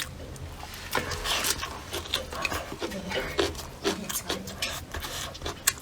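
Eating noises: chewing and gnawing on bony braised duck pieces, with many small clicks and rustles.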